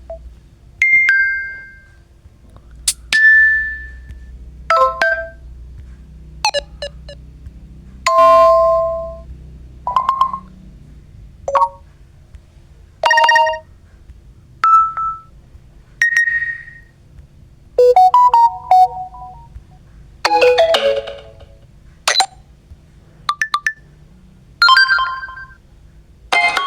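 Samsung One UI 7 phone notification tones played one after another: a string of short, different chimes and dings, a new one every second or two.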